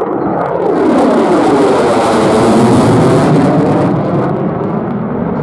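F-35 Lightning II fighter jet's single Pratt & Whitney F135 engine roaring as the jet passes. The roar swells to a peak with a sweeping, shifting hiss a second or so in, then eases off near the end.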